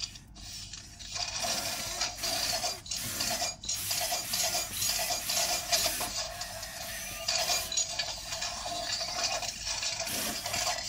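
Robosen Bumblebee robot's servo motors whirring as it swings its arms through an attack routine, in stretches with short pauses between moves.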